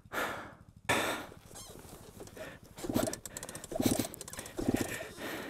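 Off-road vehicle engine idling with a steady low putter, with several short louder bursts in the second half.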